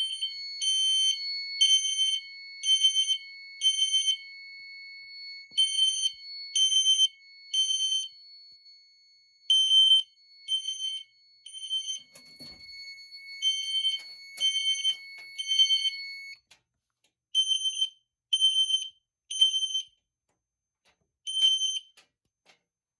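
System Sensor horn strobes (a P2RL and a P1224MC) on their 3 kHz tone sounding the temporal-3 fire evacuation pattern: three short beeps, a pause, repeating, signalling a general alarm from a pulled manual pull station. A steady higher tone sounds underneath and stops about 16 seconds in.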